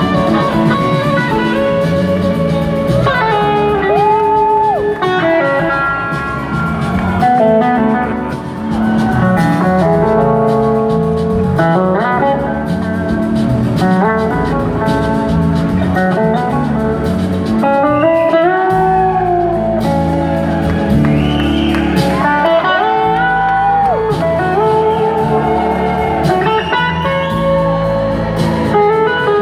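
Live blues-rock band playing loudly: electric guitars trade lead lines over drums and bass, with a slide guitar's gliding notes sliding up and down between pitches.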